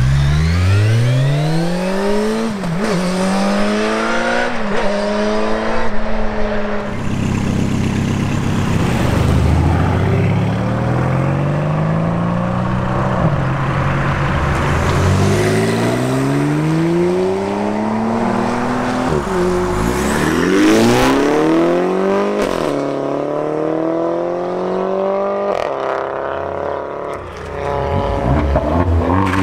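Supercars accelerating hard one after another: the engine note climbs steeply and drops back at each upshift, again and again, with a new hard launch starting just before the end.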